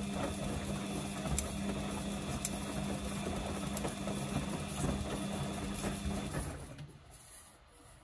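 Samsung front-loading washing machine tumbling wet laundry in its drum during a 40° prewash, with a steady motor hum, churning, and a few light clicks. The drum motor stops and the sound dies away about six and a half seconds in.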